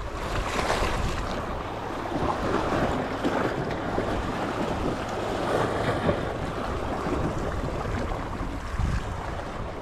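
Sea waves washing in steadily, with wind buffeting the microphone.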